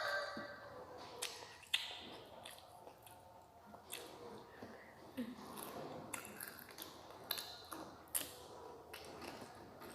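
Crunching bites and chewing of crispy fried chicken: a handful of sharp, separate crackles over quiet mouth sounds.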